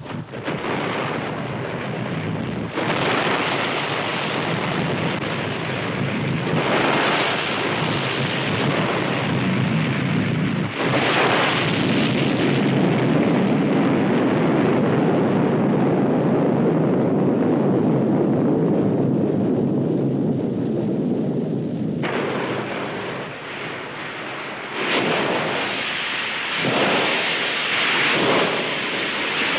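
Thunder: several long rumbles, each starting with a sharp crack, about 3, 7 and 11 seconds in and again near the end.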